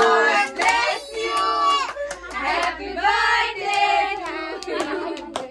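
A group of children and adults singing together, with hand claps. The singing fades out near the end.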